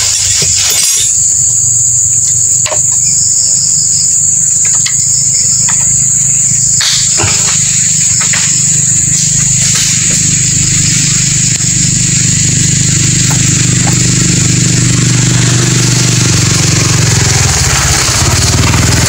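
A motor runs steadily with a low hum that grows louder near the end, under a steady high-pitched drone. A few light clicks come from a screwdriver working on the chainsaw's body screws.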